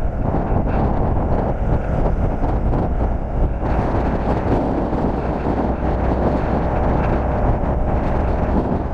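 Steady rush of wind on the microphone over the rolling of longboard wheels on asphalt at downhill speed.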